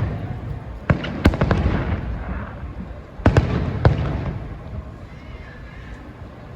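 Aerial fireworks shells bursting: two sharp booms about a second in and two more about three seconds in, each pair followed by crackling and rumbling that dies away near the end.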